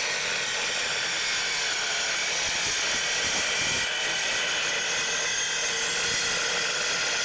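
Evolution EVOSAW180HD metal-cutting circular saw running under load, its blade cutting steadily through steel plate with an even, high-pitched whine.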